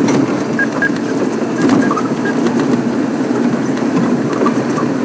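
Open safari game-drive vehicle driving along a rough dirt track: steady engine and road noise with scattered rattles and knocks from the body over bumps.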